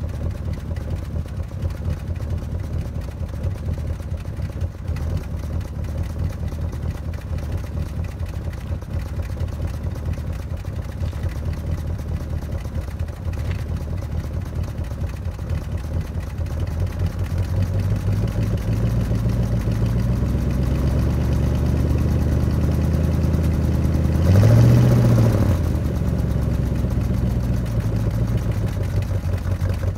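A 1966 Plymouth Barracuda's 318 V8 with a two-barrel carburettor idling, heard from behind the car at the exhaust. The idle grows a little louder from about halfway, and near the end a brief blip of the throttle rises and falls within about a second before it settles back to idle.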